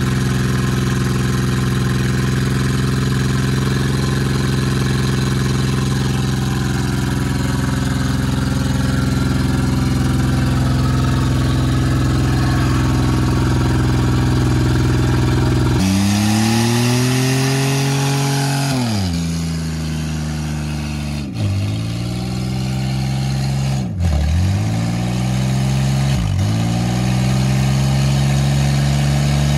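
Ford Ranger pickup's engine held at steady high revs through a burnout, its rear wheel spinning in place. About halfway through, a front-wheel-drive minivan's engine takes over, its revs dropping sharply and surging back up three times while its front tyre spins in smoke.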